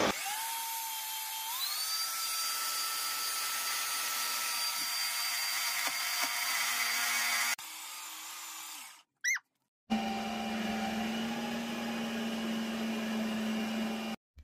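Ninja Creami ice-cream maker running its sorbet program on frozen pineapple: the motor spins up with a rising whine that steps up in pitch, then settles into a steady high whir as the blade shaves the frozen pint. The sound cuts off abruptly partway through, and after a short break the machine runs steadily again with a low hum under the whir.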